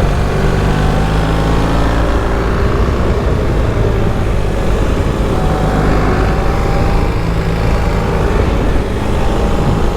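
BMW R1300GS boxer-twin engine running under load at track speed, its pitch rising and falling as the bike accelerates out of and slows into corners, under a steady rush of wind noise.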